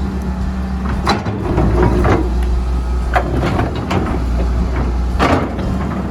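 Excavator's diesel engine running steadily, with several short scrapes and knocks of the steel bucket against hard frozen ground.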